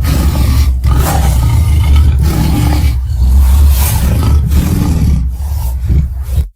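Loud monster roar sound effect for a big furry creature: a run of heavy roars separated by short breaks, cutting off suddenly near the end.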